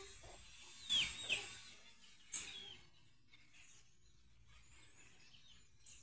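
Maritaca parrots giving short, harsh screechy calls that fall in pitch, two close together about a second in and one more a little past two seconds. After that only a faint background remains.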